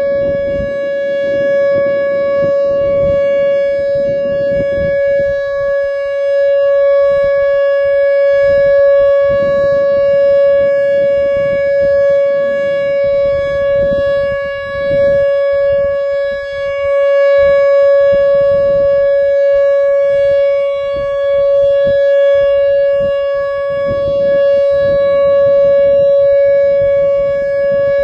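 Whelen WPS-2910 electronic speaker siren sounding its steady single-tone Alert, one unbroken pitch held at a constant level. An uneven low rumble comes and goes underneath it.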